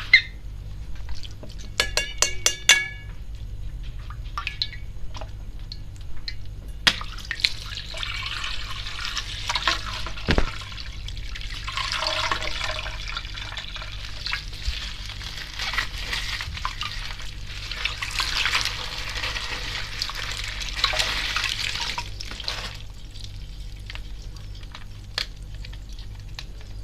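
Water sloshing and splashing as a water-filled bag is opened and emptied, with a few sharp clicks of handling in the first three seconds and a low steady hum underneath.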